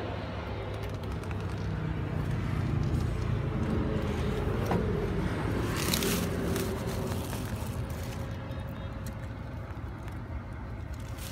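Hyundai three-axle dump truck's diesel engine idling, a steady low hum heard inside the cab, with rustling and scraping from handling and a brief louder scrape about six seconds in.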